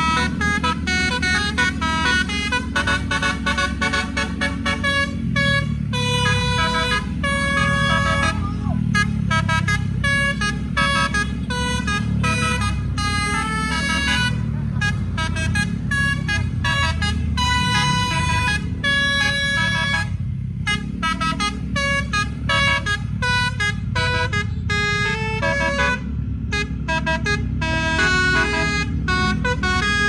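Bus musical air horn (telolet/basuri) playing a fast tune of short, bright notes, one after another, over a steady low rumble.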